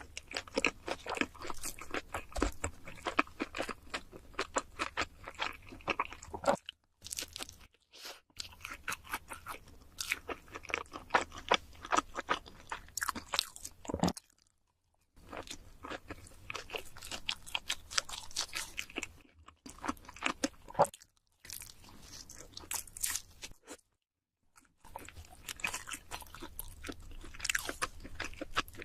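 Close-miked chewing and crunching of cheese seafood pizza: dense, irregular crunches and bites with moist chewing between. The sound drops to dead silence several times for a moment.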